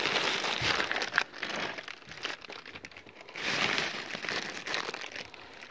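Plastic bag and foil snack packets crinkling as they are handled and rummaged through, in two spells with a short lull between.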